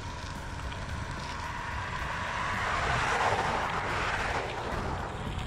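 A vehicle passing by: its hiss swells to a peak a little past the middle and then fades, over a steady low rumble.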